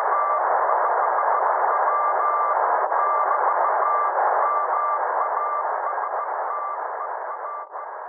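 Morse code distress call from a sinking American ship, heard on a ship's radio receiver: a keyed tone of dots and dashes over heavy, steady static, sending the ship's position and signing off as the master. It fades out near the end.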